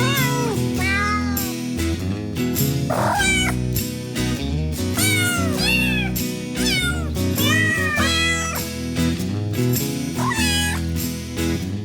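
A cat meowing repeatedly, about half a dozen drawn-out meows that rise and fall in pitch, over background music.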